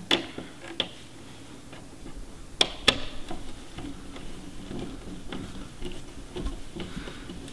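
Small screwdriver tightening a terminal screw on a plastic thermostat wall plate, clamping a thermostat wire: faint scattered clicks and scrapes, with two sharper clicks about two and a half seconds in.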